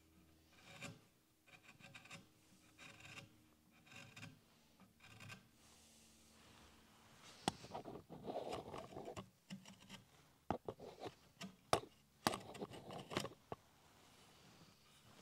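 Sharp chisel paring a chamfer around the end of a wooden stool leg by hand. Short shaving cuts come about once a second at first, then from about halfway through the cuts turn louder and denser, with several sharp clicks.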